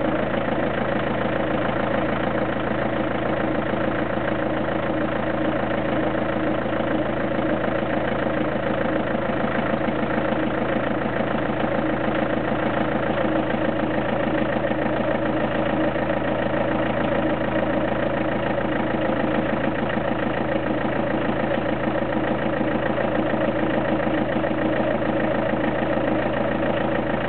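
Car engine idling steadily, with no change in speed.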